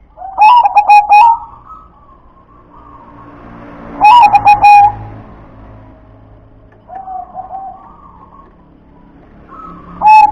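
Zebra dove (perkutut) singing: short phrases of rapid staccato cooing notes, repeated about every three seconds, four times, the third softer than the others.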